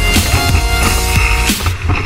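Electronic music soundtrack with a heavy bass line, gliding synth notes and a beat. The highs drop out briefly near the end.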